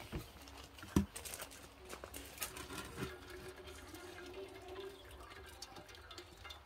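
Two sharp knocks in the first second, then faint irregular pattering as a string-tied banana-leaf bougna parcel is lifted dripping out of its steaming cooking pot.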